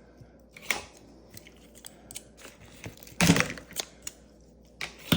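Small plastic gas-mask filter parts being handled: scattered light clicks and rustles, with a louder burst of clicking and rustling about three seconds in.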